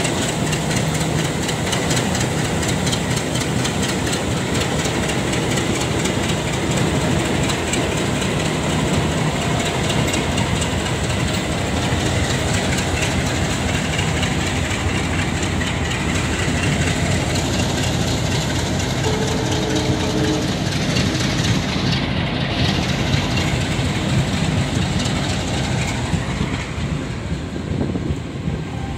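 Passenger train coaches running along the track, heard from on board: a steady rumble of wheels on rail with a fast clickety-clack.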